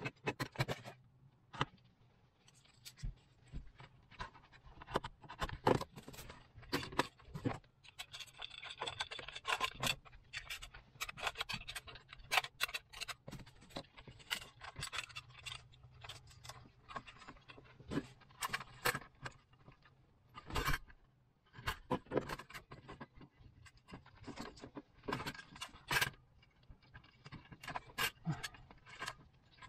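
Irregular clicks, knocks and light rattles of hand work with tools and small parts, with a stretch of scraping or rustling about eight to twelve seconds in, over a faint steady low hum.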